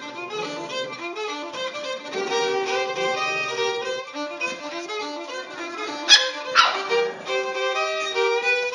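Violin music playing, with two sharp yips from a small dog cutting through about six seconds in, half a second apart.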